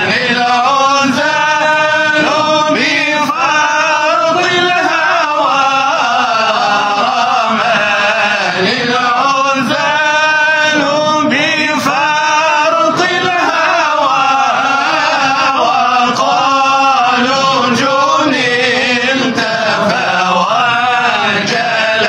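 Male voices chanting an Arabic Sufi inshad (devotional hymn) in long, drawn-out lines, the pitch sliding up and down through each phrase.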